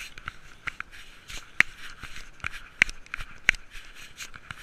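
A cat's steps through dry grass and dead leaves, heard as irregular crackling and rustling from a camera worn on its body, with three sharper clicks about a second and a half, three and three and a half seconds in.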